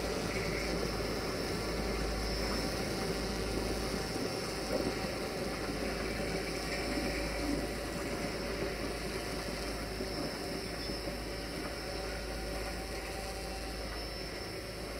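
Steady engine running of a train, a rumble with hiss that slowly fades.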